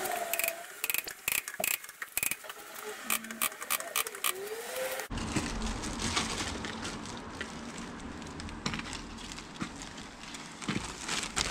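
Footsteps and small clicks on a gravel driveway, then a clear plastic bag of wheel-nut indicators rustling and crinkling close to the microphone from about five seconds in.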